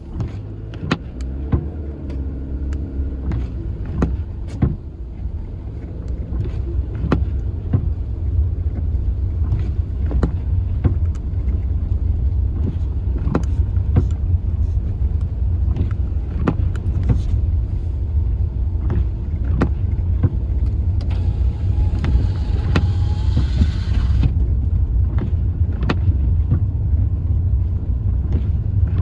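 Car driving, a steady low road rumble with many scattered sharp clicks. A few seconds of hiss come in a little over three-quarters of the way through.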